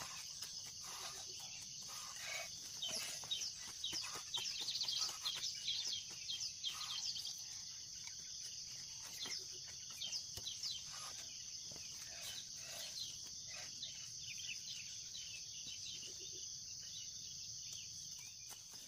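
A hoe chopping and scraping into loosened soil in irregular strokes, busiest in the first half, over a steady high-pitched insect drone.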